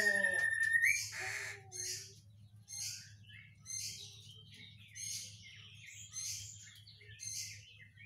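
Caged whistling thrush (ciung batu) calling hard. A held whistle in the first second is followed by a short harsh burst, then a run of short, sharp, high-pitched calls about once a second.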